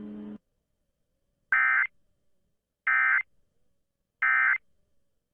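Emergency Alert System end-of-message signal: three short, identical bursts of SAME digital data tones about a second and a half apart, marking the close of the alert broadcast. A steady background hum cuts off just before the first burst.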